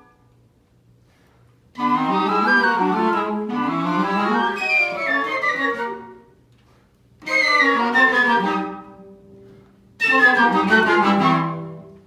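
Flutes, clarinet and cello playing in a small chamber ensemble: three short phrases of falling runs, each starting suddenly and dying away, with pauses between.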